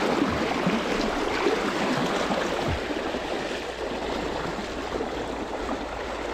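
River water rushing steadily over a shallow stretch.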